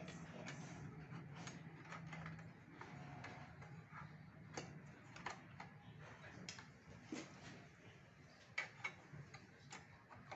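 Faint, irregular small clicks and taps of plastic and screws as the inner motherboard cover and back panel of an all-in-one PC are refitted.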